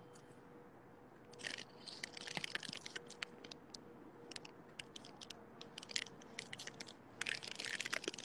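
Someone chewing crunchy chips close to a phone microphone: an irregular run of crisp crunches that starts about a second and a half in and comes in clusters.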